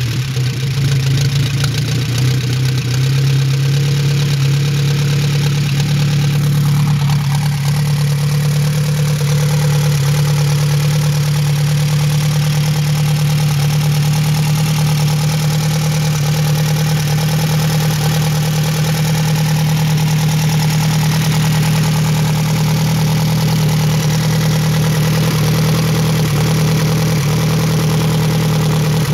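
1928 Henderson Deluxe motorcycle's air-cooled inline four-cylinder engine idling, just started from cold on half choke. It is a little uneven for the first few seconds, then settles into a steady idle.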